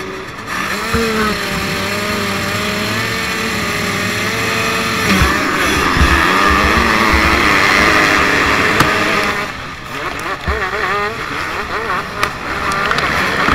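Motocross dirt bike engines at a race start: an engine held at steady revs, then launching hard about five seconds in and accelerating among the pack, with a short drop in revs just before ten seconds as it shifts and pulls again.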